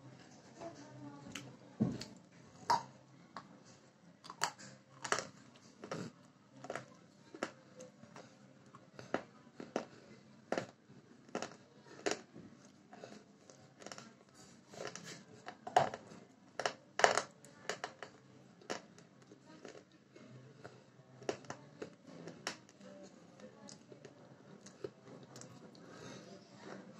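A person chewing crunchy food close to the microphone: irregular sharp crunches and mouth clicks, the loudest bunched a little past the middle.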